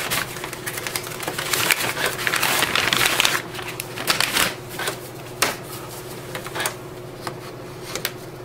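Sheets of printer paper rustling as they are handled, loudest in the first half. Then comes a scatter of light taps and clicks as a sheet is set into the paper input tray of an HP OfficeJet mobile printer.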